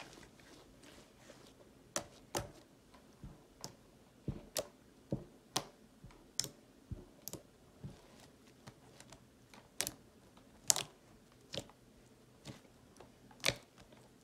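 Fluffy slime (glue, shaving cream and foam soap) being squished and kneaded by hand, giving sharp, irregular clicks and pops as trapped air bursts, about one or two a second.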